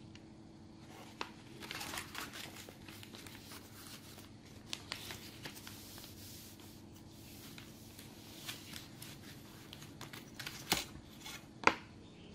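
Sheet of wrapping paper being handled, slid and folded on a table, with rustling and scraping and a few sharp taps, the loudest two near the end, over a faint steady hum.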